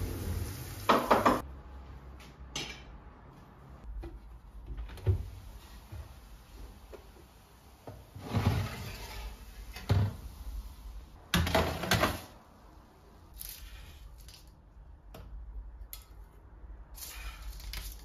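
Kitchen cookware being handled: a series of short, irregularly spaced clatters and knocks as a frying pan is moved on a gas hob and an oven door is opened to slide out a metal baking tray. The loudest knocks come about a second in and again near twelve seconds.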